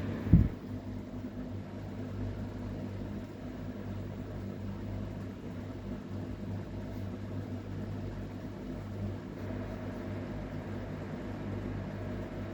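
A steady low electrical hum, with a single thump just after the start.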